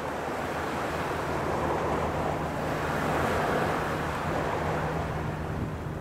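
Small waves breaking and washing up a sandy beach. The surf swells to its loudest about halfway through and then eases, over a faint, steady low hum.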